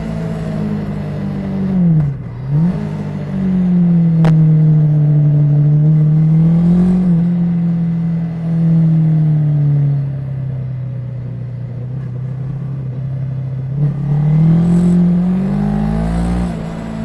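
Honda CB500 parallel-twin engine running under way: the revs drop sharply and pick back up about two seconds in, hold steady, sag for a few seconds, then climb again and fall off near the end. A single sharp click about four seconds in.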